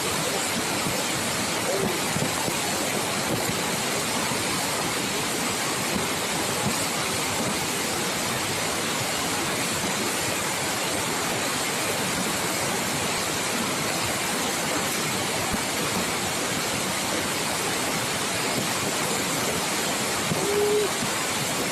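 Steady rushing of a waterfall, with a faint voice briefly near the end.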